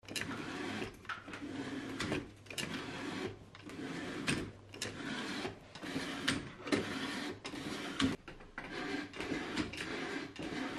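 Workshop handling sounds: a quick series of about a dozen short scraping, sliding and clicking noises, each under a second, with brief gaps between them.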